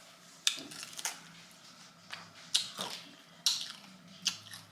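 Close-up crunching of an extra-crispy fried chicken wing being bitten and chewed: about five sharp, irregular crunches.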